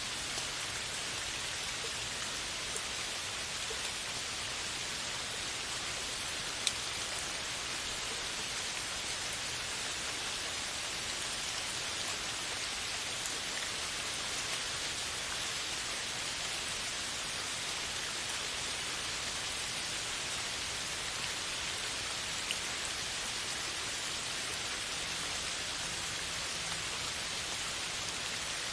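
Steady rain falling on a forest canopy, an even hiss, with a single drop or two landing sharply close by, the clearest about a quarter of the way in.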